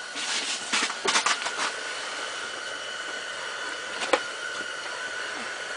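Steady mechanical hum with a constant high whine, like a fan or heater running. Over it come a few short rustling noises in the first second and a half, and one sharp knock about four seconds in.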